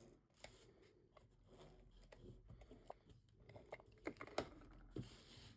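Faint handling of cardstock: scattered soft taps, clicks and light rustling as an embossed paper layer is adhered to a card base, with a few sharper taps near the end.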